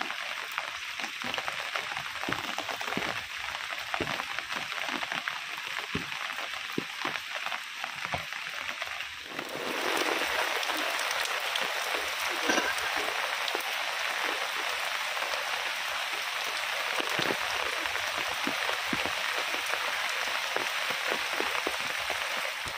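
Heavy rain falling, with many separate drops and splashes heard in it at first. About nine seconds in it changes suddenly to a denser, steadier downpour.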